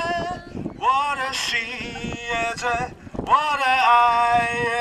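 A man singing through a handheld megaphone, holding two long drawn-out phrases, with some wind on the microphone.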